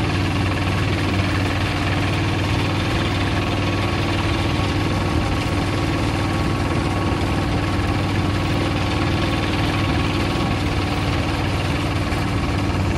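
Hand tractor engine running steadily as it pulls its trailer, an even, unchanging engine sound.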